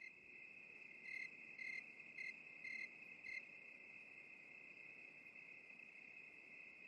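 Faint night-time crickets trilling steadily. Five louder chirps come about two a second in the first half.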